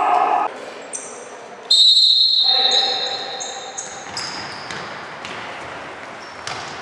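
Futsal play on a wooden sports-hall floor: the ball thumping and shoes squeaking on the court, with a loud high-pitched tone that starts sharply about two seconds in.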